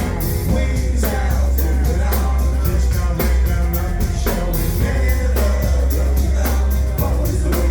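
Live band playing at full volume: a heavy bass line, a steady drum-kit beat and singing.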